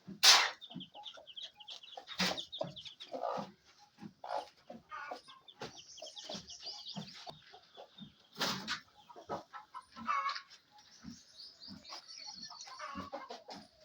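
Chickens clucking among small birds chattering in fast, high chirps and trills, with a few loud, sharp calls, the loudest just after the start.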